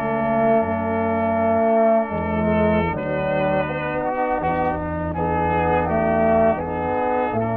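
Small brass ensemble playing a slow chorale-like tune in sustained chords that change every second or so.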